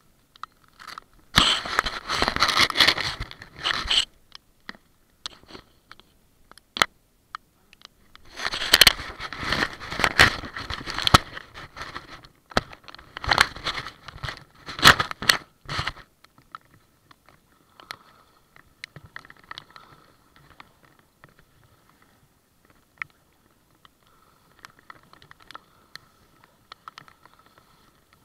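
Hand rubbing and handling the camera in three bursts of scraping, crackling noise, the loudest about a second in and in the middle. After that come only faint scattered ticks.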